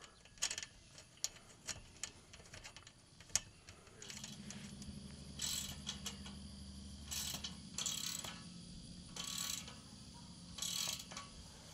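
Light metal clicks as a nut and bolt are fitted by hand into a steel frame, then a socket ratchet wrench tightening the nut in about five short runs of rapid clicking. A faint low hum sits underneath from about four seconds in.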